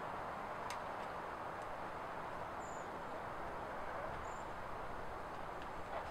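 Steady outdoor background noise, with a single sharp click about a second in and two brief high chirps later on.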